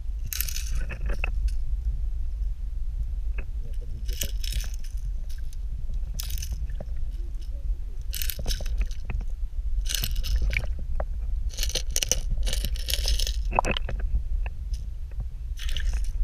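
Underwater sound through an action camera's waterproof housing: a steady low rumble of water against the case, broken by short crackling, hissing bursts and a few clicks at uneven gaps of one to two seconds.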